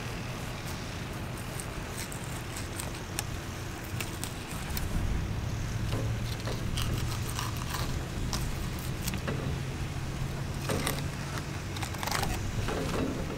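A knife scraping and crackling as it cuts along a mutton snapper's scaled side while it is filleted, with scattered short clicks. A low steady hum runs underneath from about four seconds in to about eleven.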